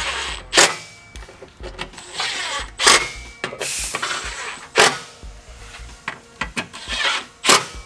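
Cordless electric ratchet running in short bursts, driving in the bolts of an aluminium skid plate, with a sharp click ending each of about four bursts.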